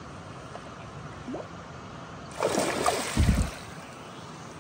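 Shallow river water flowing steadily over gravel. About two and a half seconds in, a splash and slosh of water with a couple of dull thumps as a chum salmon is handled in the shallows.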